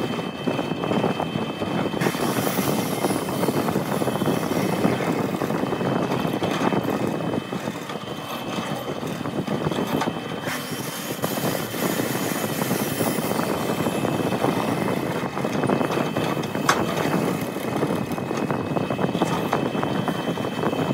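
Bench drill press running with a steady motor whine while its long twist bit bores a deep hole into a thick block of wood, chips churning out of the hole.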